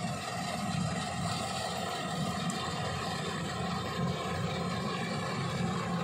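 Kubota rice combine harvester's diesel engine and threshing machinery running steadily under load while it cuts rice.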